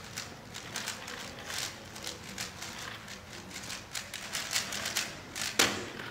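A 3x3 speedcube being turned very fast: a rapid, irregular clatter of plastic layers clicking. It ends with one louder slap about five and a half seconds in as the solve finishes and the hands come down on the stackmat timer.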